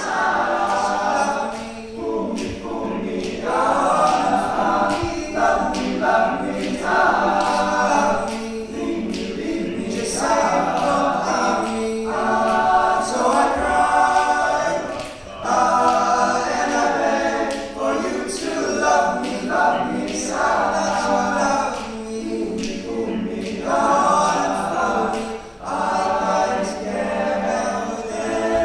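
All-male a cappella group singing: a lead voice over close backing harmonies, with a steady percussive beat running underneath.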